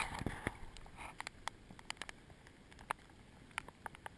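Scattered light ticks and taps at uneven intervals, about a dozen, over a faint steady low rumble of wind and water.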